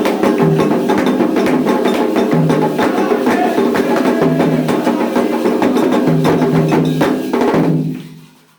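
Percussion-driven music: drums under a fast pattern of sharp clicking strokes, with a stepping bass line and pitched parts. The music drops away about eight seconds in.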